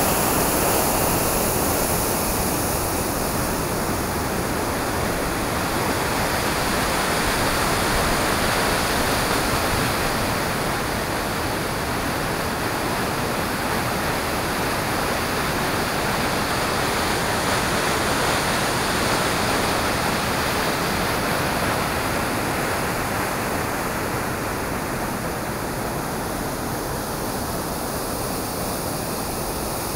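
Edessa waterfall: a steady, even rush of heavy falling water that fades slightly toward the end.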